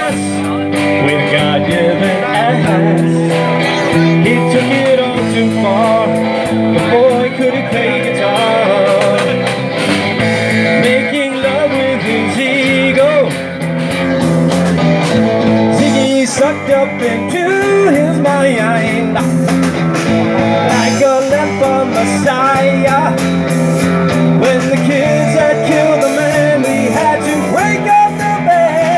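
Live rock band playing: electric guitar, bass guitar and drum kit, with a steady beat and a melodic lead line over it.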